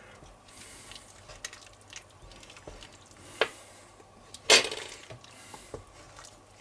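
Wooden spatula and metal spoon stirring a thick stew in a cast-iron Dutch oven, with scattered clinks and scrapes against the pot; the loudest clink, which rings briefly, comes about four and a half seconds in.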